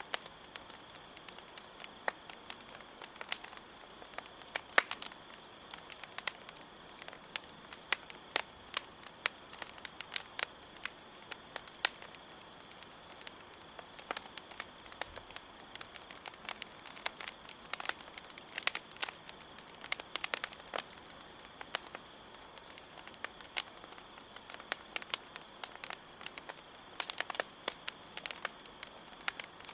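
Wood campfire crackling, with frequent sharp pops and snaps that come thicker in the middle and again near the end. Under it runs a steady high cricket trill.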